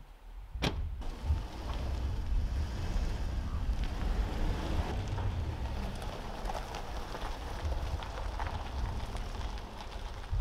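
A Toyota 4Runner's door shuts with a sharp knock about a second in. Then the engine runs steadily as the SUV drives off, with a low rumble and tyre noise on the road.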